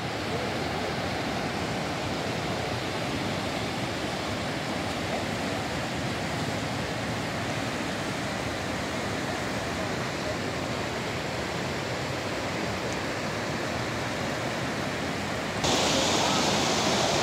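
Muddy floodwater of a river in spate rushing past, a steady noise of churning water. It grows abruptly louder and sharper near the end.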